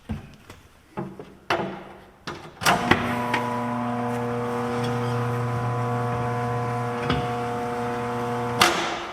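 A few knocks and clicks, then an electric motor starts about three seconds in, hums steadily for about six seconds, and cuts off suddenly near the end.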